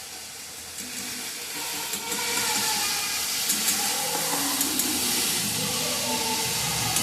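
A steady hiss that gets louder about two seconds in, with faint wavering tones beneath it.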